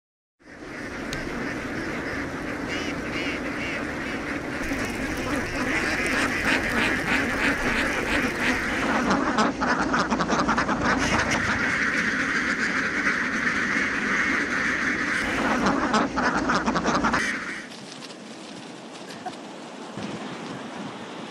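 A huge flock of domestic ducks quacking all at once in a dense, continuous din. It cuts off suddenly near the end, giving way to quieter wind and surf noise.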